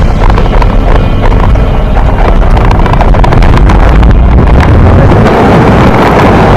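Single-engine light plane's engine and propeller heard inside the cabin, a loud steady drone that grows a little louder about three seconds in.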